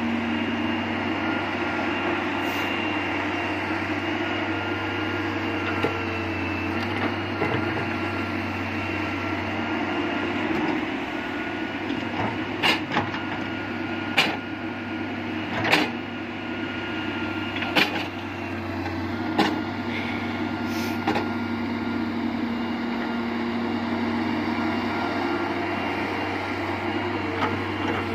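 Diesel engines of a Hitachi excavator and a Massey Ferguson tractor running steadily, with about six sharp knocks from the excavator's digging and loading spread over the middle stretch.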